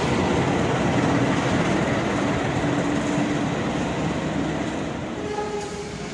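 CC 206 diesel-electric locomotive running light past the platform on a shunting move, its engine running with wheels rumbling on the track. The sound changes and drops a little about five seconds in.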